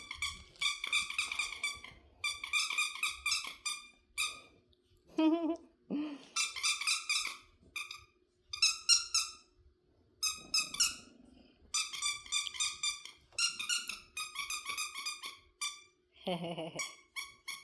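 Dog's squeaky toy squeezed over and over in bursts of rapid high-pitched squeaks, each about a second long with short gaps between. A couple of short wavering cries come in between the bursts.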